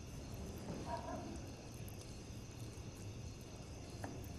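Faint knife work: a chef's knife cutting through a cooked stuffed meat roll onto a plastic cutting board, with one short click near the end, over a steady high-pitched background hum.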